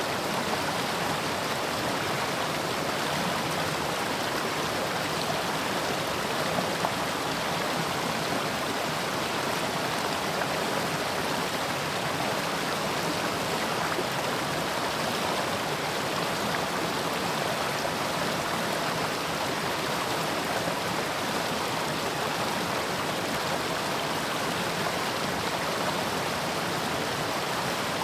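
Mountain stream rushing steadily over rocks, an even, unbroken water sound.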